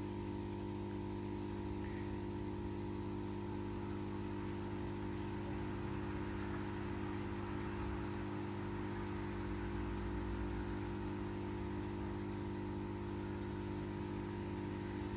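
Steady low electrical hum with a few evenly spaced overtones over a faint hiss, unchanging throughout.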